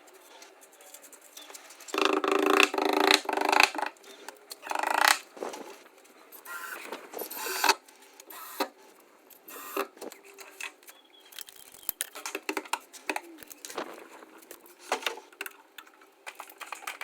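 Hand tools and metal fittings clicking, knocking and scraping in irregular bursts during combi boiler installation work, with a louder, buzzier stretch of handling about two seconds in.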